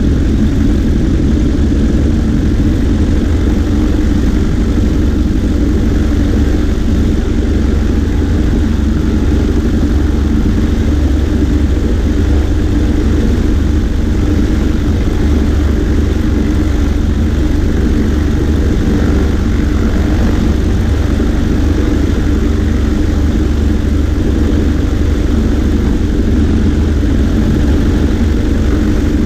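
Cessna 140A's piston engine and propeller running steadily in flight, a loud even drone with wind rush over the wing-mounted microphone.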